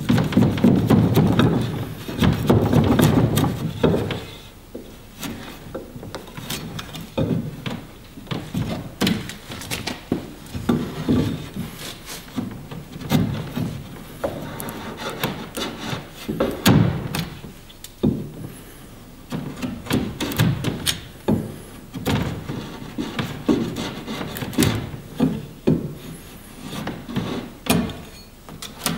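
Axe blade paring and shaving old wood from the bevelled scarf end of a wooden boat plank. A dense run of scraping cuts comes in the first few seconds, then shorter strokes about once a second, each with a sharp click.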